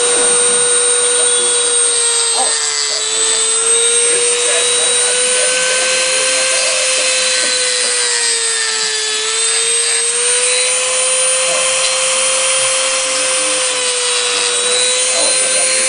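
Dremel rotary tool with a cut-off wheel running at speed, cutting through the stony skeleton of a micromussa coral to split off a frag. A steady high whine whose pitch dips slightly twice.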